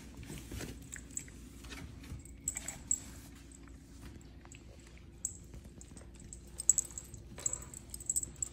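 Puppies chewing and mouthing at play on a tile floor, with scattered sharp clicks and taps, the loudest a cluster about two-thirds of the way through.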